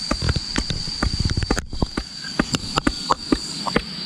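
Irregular knocks of a stone pounding the top of a bamboo pole to drive it into the ground, several strokes louder than the rest. A steady high insect drone runs underneath.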